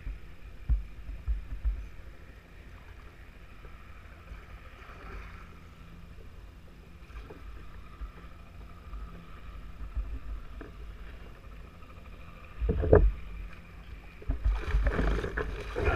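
Low bumps and knocks of handling on a plastic fishing kayak, with a little wind on the microphone. About twelve and a half seconds in there is a sharp thump. Near the end a louder stretch of splashing and commotion starts as a hooked fish is fought beside the kayak.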